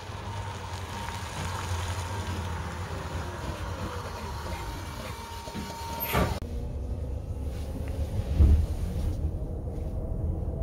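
Volvo FE Electric truck driving slowly: mostly tyre and road noise with a faint steady electric whine from its motors, no engine. About six seconds in, a click, then a duller low rumble with a thump a couple of seconds later.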